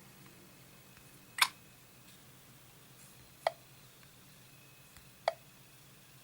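Three sharp clicks about two seconds apart, the first the loudest, over a faint steady background hiss.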